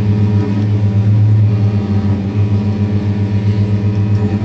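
Double bass bowed on a low, held note, a steady drone with slight breaks where the note is re-bowed.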